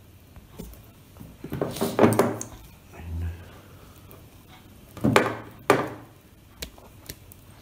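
Handling noise from electrical wiring work: rustling and clattering of wires and small parts being handled, in two louder bursts about two and five seconds in, with a few light clicks between.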